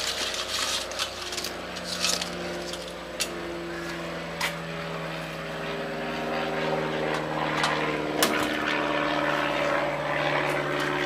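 A steady engine drone whose pitch slowly wavers, with a few sharp metallic clinks as a wire-mesh fryer basket is handled.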